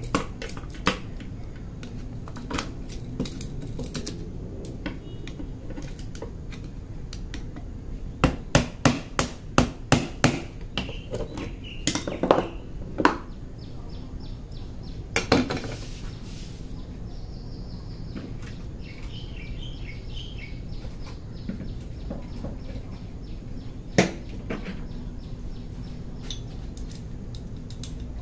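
Metal clinks and hammer taps as the steel parts of a car door check are knocked together to seat them tightly: a quick run of about eight sharp taps around eight seconds in, a few more knocks soon after, and one single sharp knock near the end.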